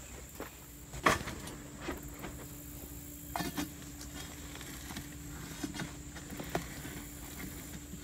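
Steel pry bar knocking and scraping against a boulder split by expansive demolition grout as it is levered in the crack. A sharp knock comes about a second in, then a few softer knocks and scrapes. A faint steady hum runs underneath from about a second in.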